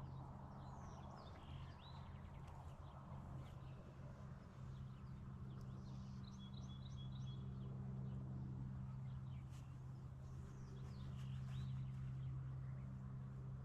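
Faint bird chirps and short trills from several birds, scattered throughout, over a steady low hum.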